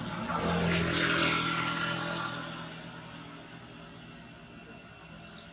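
A motor vehicle's engine hum that fades away over the first few seconds. A few short, high-pitched chirps come about two seconds in and again near the end.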